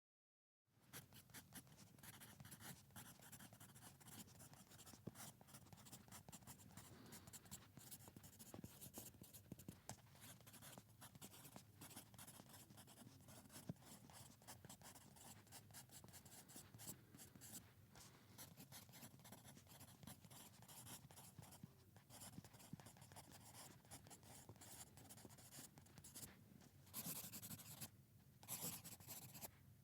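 Pencil writing on paper: a quiet, continuous run of short strokes starting about a second in, with a few louder, brighter strokes near the end.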